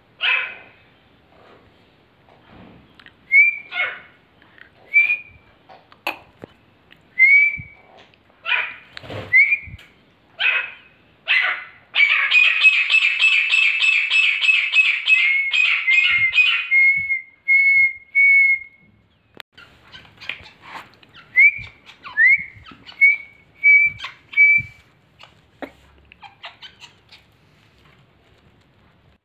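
Young male grey francoline calling in exchange with a whistle imitating its call: short rising whistled notes repeated about once a second, with a loud run of rapid calls from about twelve to seventeen seconds in.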